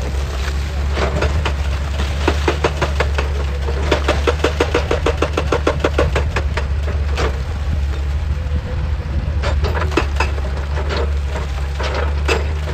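Excavator engine running with a steady low drone, under rock knocking and clattering. About four seconds in comes a quick, even run of knocks, roughly eight a second, lasting a couple of seconds.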